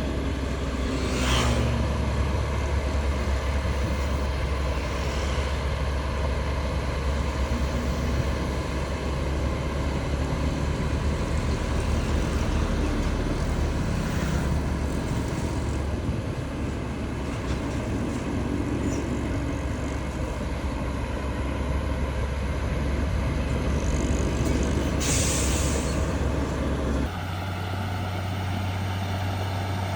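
Heavy diesel machinery engines running steadily, with two short bursts of hiss, one about a second in and one near the end. Shortly before the end the engine sound changes abruptly to a different, steadier tone.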